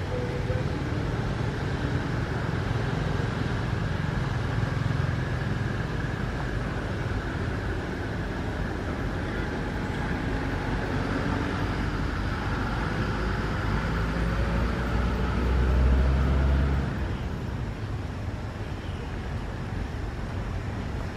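Steady outdoor low rumble, like distant road traffic, that swells for a couple of seconds about three-quarters of the way through, with faint thin tones above it.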